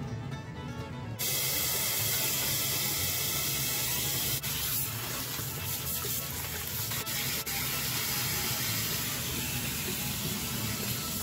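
Kitchen tap running into a stainless pot of blanched crown daisy greens in the sink, water splashing over the leaves as they are rinsed. The steady flow comes on suddenly about a second in.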